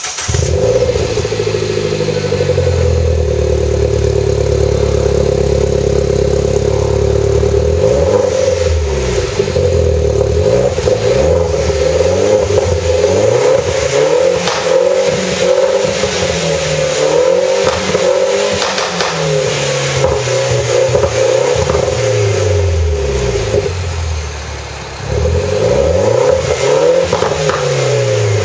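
BMW MINI R56 four-cylinder engine running through a Duell rear silencer and tailpipes with an Arqray centre pipe. It idles steadily at first, then from about a third of the way in it is revved up and let fall back again and again.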